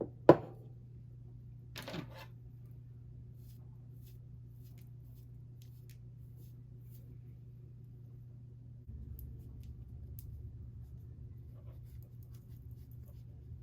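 Hair dryer running with a steady low hum, turning louder and rougher about nine seconds in. Two sharp clicks come in the first two seconds, the first of them loud.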